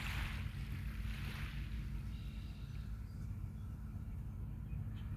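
Steady low rumble of wind on the microphone, with a soft wash of small waves on the beach in the first second or so.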